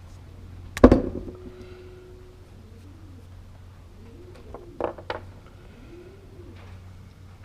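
A sharp metal clank about a second in, a tool or part set down on a hard workbench, ringing briefly, then a few lighter clicks and knocks near the fifth second as small parts are handled.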